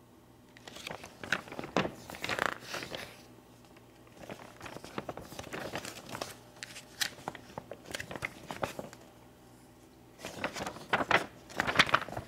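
Paper pages of an instruction booklet rustling and flapping as they are turned, in three spells of a few seconds each, the last the loudest.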